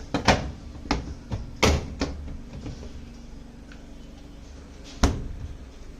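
Several sharp knocks and clunks as a part is handled and fitted in place, mostly in the first two seconds, with a single loud knock about five seconds in. A steady low hum runs underneath.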